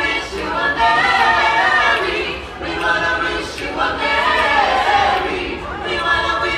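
A small mixed choir of carolers singing a holiday carol a cappella, in sustained phrases with short breaks between them.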